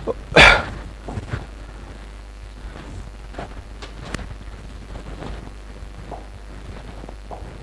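Quiet room tone with a steady low hum and a few faint, scattered clicks, after one short louder sound about half a second in.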